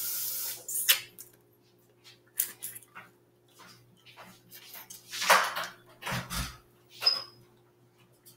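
Close mouth sounds of eating snow crab legs: short slurps, sucks and chewing smacks with small shell clicks, scattered and irregular, the loudest about five seconds in.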